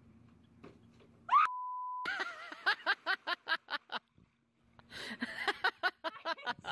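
A short rising yell cut off by a steady beep tone lasting about half a second, then bursts of rapid, rhythmic laughter. The laughter stops for a moment near the middle, then starts again.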